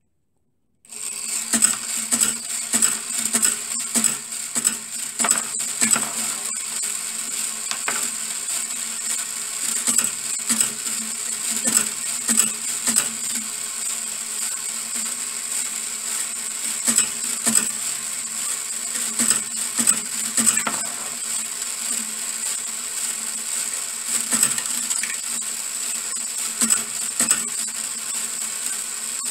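Small DC electric motor of a brass-wire marble machine switched on about a second in, then running steadily with a high whine, while metal balls click and clatter irregularly on the wire track and lift.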